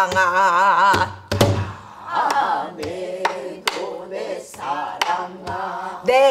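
Pansori singing with a wide, wavering vibrato, accompanied by a buk barrel drum: sharp clicks of the stick on the drum and a deeper thud about a second in.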